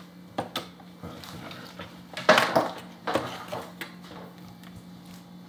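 Removable grill plates of a George Foreman grill clicking and clattering as they are handled and fitted into the grill: a couple of sharp clicks under a second in, then louder rattling knocks in the middle, and a few lighter knocks after.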